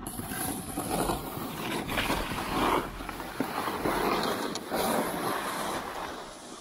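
Skis scraping and carving over hard-packed groomed snow through a series of turns, the noise swelling and easing about five times.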